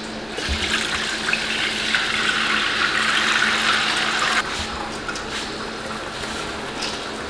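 Soaking water pouring in a steady stream from a pot of soaked rice into a steel colander as the rice is drained. The pouring cuts off sharply about four and a half seconds in, and the wet rice is then tipped into the colander more quietly.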